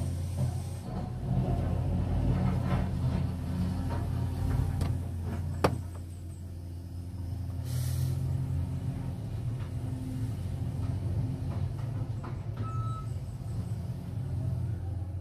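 Caterpillar 345GC hydraulic excavator's diesel engine running under load while it digs and swings, a steady low drone that rises and falls with the work. It is joined by clattering in the first few seconds, one sharp knock about five and a half seconds in, and a brief hiss near eight seconds.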